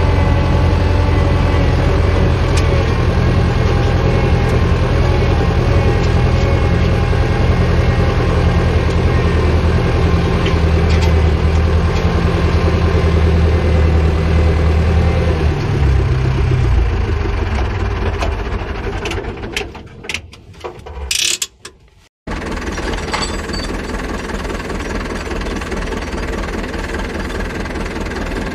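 Zetor 4011 tractor's four-cylinder diesel engine running steadily, then dropping in pitch and fading out about two-thirds of the way through. After a brief gap comes a fainter, steady mechanical hum.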